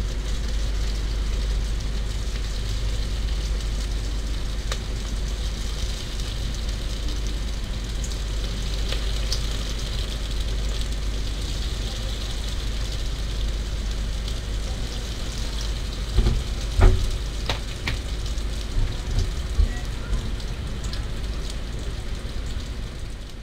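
Lumpia (spring rolls) deep-frying in hot oil in a pot, with a steady sizzle. A few sharp knocks come about two-thirds of the way through, as metal tongs turn the rolls against the pot.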